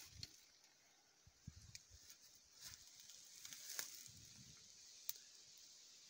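Near silence: faint outdoor ambience with a steady high hiss and a few soft clicks and small knocks.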